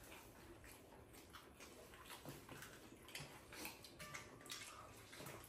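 Faint eating sounds: scattered soft wet smacks and clicks of people chewing and working food with their fingers.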